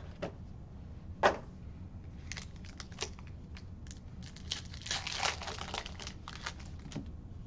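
Foil wrapper of a trading-card pack crinkling and tearing as it is ripped open by hand, the crinkling thickest about five seconds in. One sharp crack about a second in is the loudest sound.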